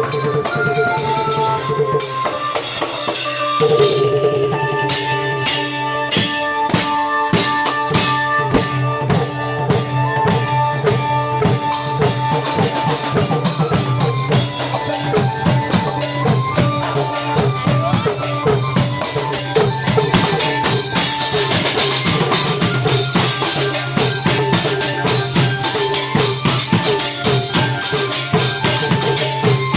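Thai klong yao long-drum ensemble playing: a steady run of drum strokes with small hand cymbals jingling, over a low held tone and a stepped melody line.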